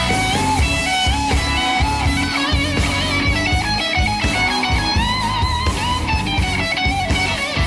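Background rock music led by an electric guitar playing a melody with vibrato over a steady beat.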